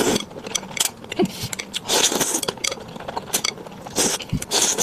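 Close-miked eating sounds: noodles and soup slurped in hissy bursts, about two seconds in and again near the end, with small mouth and utensil clicks between them.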